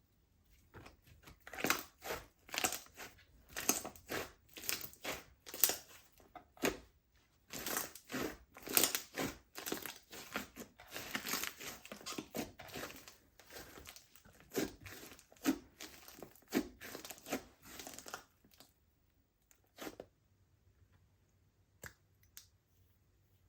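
Slime being squished and kneaded by hand, a quick run of sticky pops and crackles that stops about 18 seconds in, followed by a few single pops.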